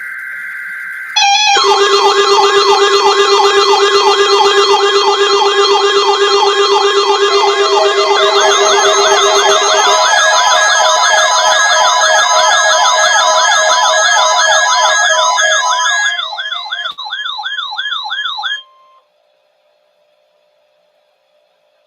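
The tail of a NOAA Weather Radio SAME digital header, a steady buzzing data tone, ends about a second in. Then several weather-radio alert sirens go off together for a Required Weekly Test: overlapping warbling siren tones about twice a second, layered with steady beeping tones. They run loud, thin out near the end, and cut off suddenly.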